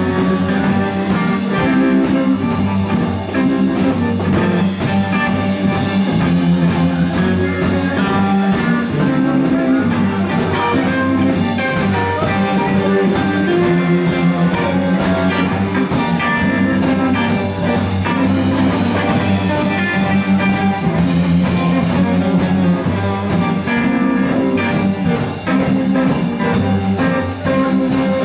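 A live blues band playing at a steady groove: a Telecaster-style electric guitar over a repeating low riff, with a drum kit keeping time.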